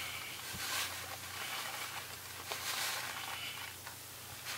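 Faint rustling of a plastic bag of shredded cheese being shaken out over a pot, with soft pattering as the cheese falls and a hand spreads it.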